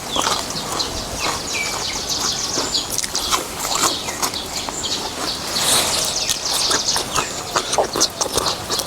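Close-miked eating of noodles with beef soup: a dense run of wet chewing, smacking and slurping clicks.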